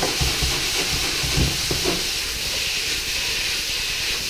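Marinated beef searing in a very hot, smoking pan: a steady sizzle while the meat is left unmoved to brown rather than stew.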